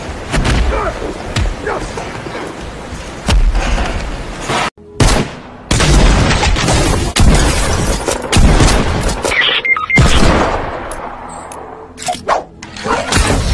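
Fight-clip soundtrack with heavy booming impacts over music. It drops out abruptly for a moment about five seconds in, then carries on with more loud hits and music.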